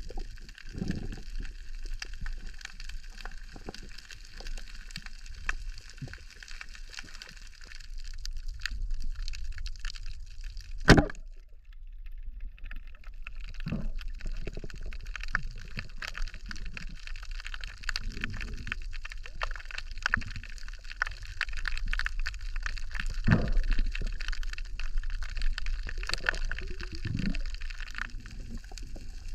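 Underwater reef ambience: a steady dense crackling, with soft swishes of water moved around the microphone every few seconds. One sharp, loud crack sounds about eleven seconds in, and the crackle briefly drops out after it.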